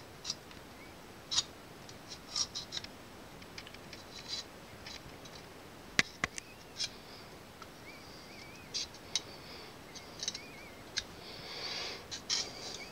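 Small scissors snipping and scraping at the leathery shell of a full-term blue tegu egg, cut open to help a hatchling that has not come out on its own: scattered sharp clicks and short scratchy crackles, with a few faint high chirps between them.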